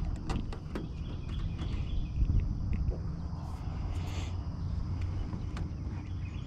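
Outdoor ambience on an open boat: a steady low wind rumble on the microphone, a few light clicks in the first second, a short hiss about four seconds in, and faint bird chirps.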